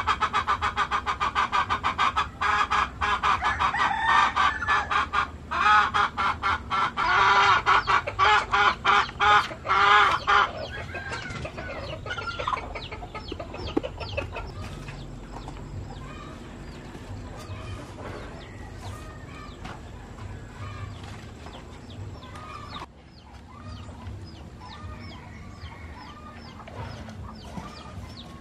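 Chickens: a hen gives a loud, rapidly repeated call for about ten seconds, then the flock settles into softer clucking and short chirps.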